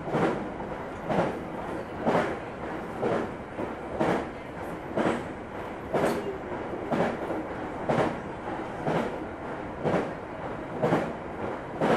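JR East Tokaido Line local electric train running at speed, its wheels knocking over rail joints about once a second above a steady rumble.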